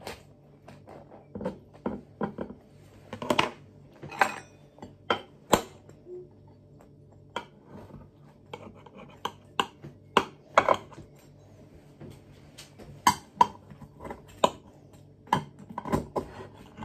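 Knife and slotted spatula clinking, knocking and scraping against a metal baking tin while the toad in the hole is cut loose and lifted out, in irregular sharp clinks.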